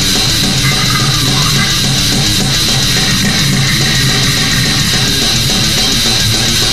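Extreme heavy metal recording: loud, distorted electric guitars over fast, even drumming, dense and unbroken.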